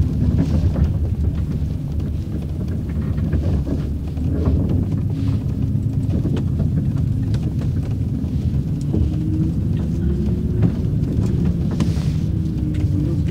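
Steady low engine rumble heard from inside a car aboard a vehicle ferry, with scattered faint ticks.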